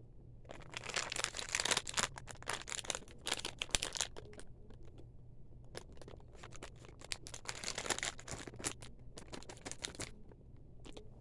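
Plastic candy bag crinkling as it is handled, in two long bouts of crackling with a short crackle near the end.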